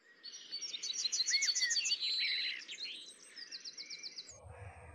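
Birds chirping in quick repeated trills of high notes, loudest in the first two seconds, with another short run a little past three seconds. A low hum comes in near the end.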